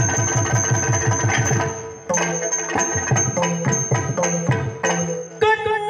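Yakshagana maddale drum playing a fast run of low strokes over a steady drone, then slower, spaced strokes. Near the end a man's voice starts singing.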